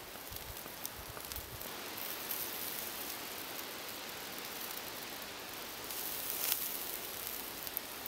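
Light rain falling on the leaf litter: a steady hiss with scattered ticks of drops, a little stronger about six to seven seconds in.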